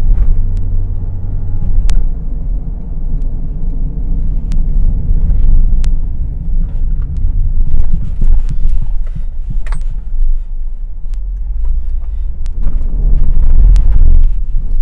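Car running along a road, heard inside the cabin as a loud, steady low rumble of engine and tyres, with a few short sharp clicks scattered through it.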